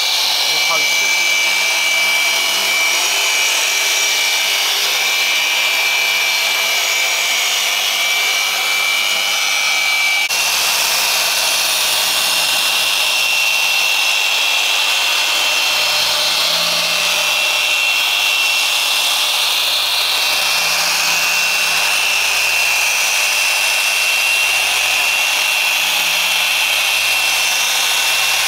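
SPTA 15 mm dual-action polisher running steadily with an orange foam pad on a car's door paint: an even electric whine over the hiss of the pad working the paint. The whine sits a little higher after about ten seconds.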